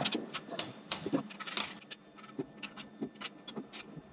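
Light, irregular metal clicks and scrapes as a hand tool works the hydraulic lifters out of their bores in a V8 engine block.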